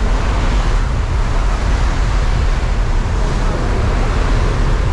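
Loud, steady roar of the jump plane's engine and the wind rushing in through the open cabin door.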